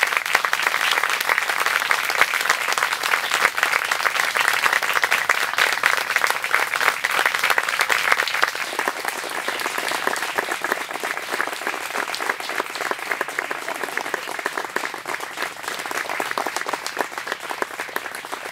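Guests applauding the newly married couple's kiss. The dense clapping eases off gradually from about halfway through.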